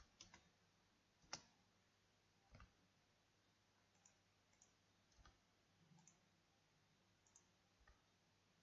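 Faint, irregular clicks of a computer mouse and keyboard, about ten in all, with one louder click about a second in.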